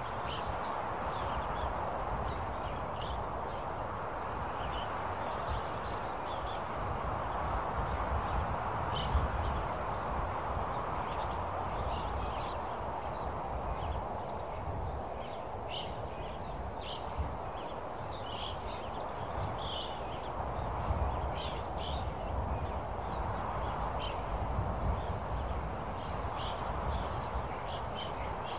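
Open-country wind ambience: a steady rush of wind that slowly swells and eases, over a low rumble, with scattered faint short chirps and ticks.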